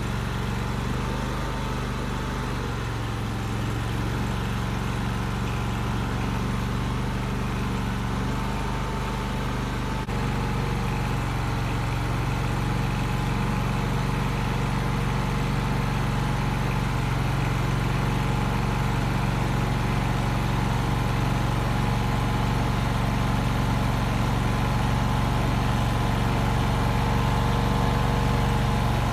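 Mini skid steer's engine running steadily, its note shifting slightly about ten seconds in and growing a little louder toward the end.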